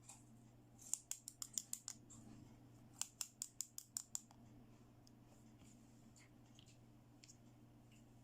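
Two quick runs of small sharp clicks, about six a second. The first starts about a second in and the second about three seconds in, each lasting about a second, with near silence between.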